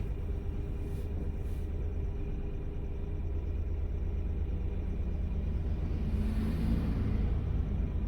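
Steady low road and engine rumble of a Honda N-ONE kei car on the move. A rush of noise swells and fades about six seconds in.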